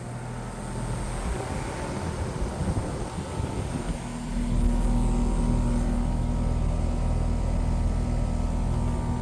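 Carrier outdoor air conditioner condensing units running: a steady fan and compressor hum. About four seconds in it gets louder, with a stronger low hum and a steady low tone.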